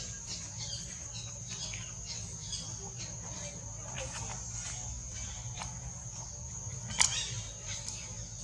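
Steady high-pitched insect drone, with scattered light clicks and rustles and one sharp click about seven seconds in.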